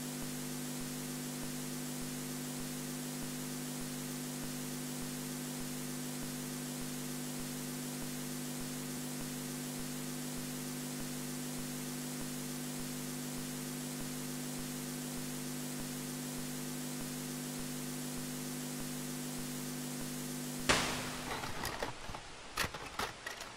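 Steady analog video-tape hiss with a low electrical hum. Nearly 21 seconds in, it breaks into a sudden loud burst of crackling, sputtering static and clicks.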